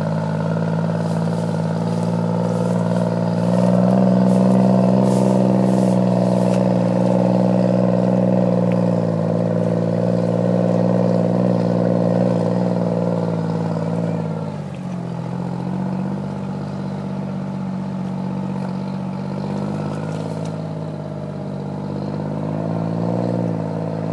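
Powered paraglider's engine and propeller droning steadily. The drone dips in pitch and loudness about fifteen seconds in, then holds a little lower.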